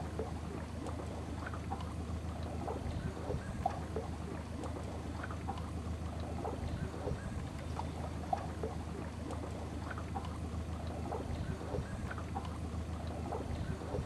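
Water rushing over a small rocky waterfall: a steady rush with scattered short gurgles.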